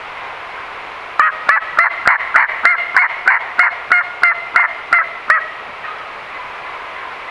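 A turkey call worked by the hunter, making hen yelps: a run of about fourteen evenly spaced yelps, about three a second, each starting with a sharp click.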